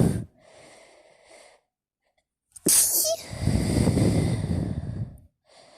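A woman sneezing hard about two and a half seconds in: one sudden, sharp blast, carried on by a loud voiced outbreath lasting about two seconds, as part of a sneezing fit.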